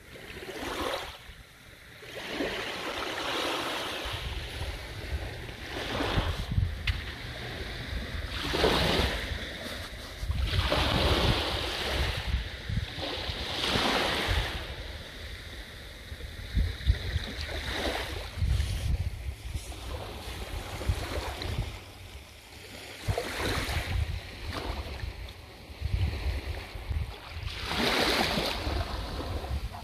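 Small waves breaking and washing up a sandy beach, surging every few seconds, with wind rumbling on the microphone.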